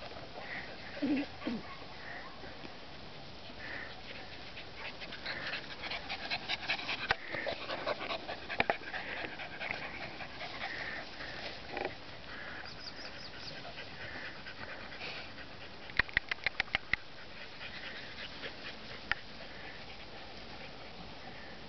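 Two French bulldogs panting and sniffing as they move about in long grass. About two-thirds of the way through comes a quick run of sharp clicks, the loudest sound here.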